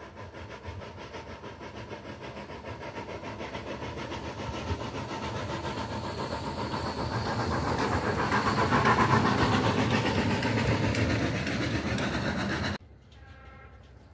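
ČSD class 310.0 steam tank locomotive 310.433, built in Budapest in 1896, chuffing steadily as it runs past. The exhaust beats and running noise grow louder toward a peak about nine seconds in, then cut off suddenly near the end.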